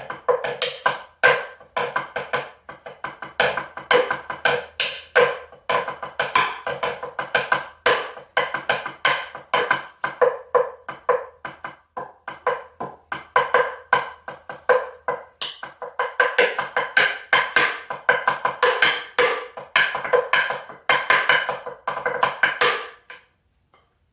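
Fast, irregular hand percussion with pitched, ringing strokes, without any voice; it stops about a second before the end.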